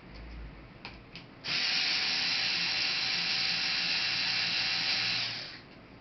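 Small electric screwdriver running steadily for about four seconds, after a couple of small clicks, as screws come out of a laptop during disassembly.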